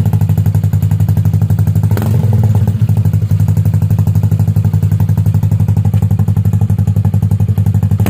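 KYMCO Xciting scooter's engine idling steadily through an open-pipe aftermarket exhaust with a Kronos midpipe, its note pulsing evenly. A single sharp click comes about two seconds in.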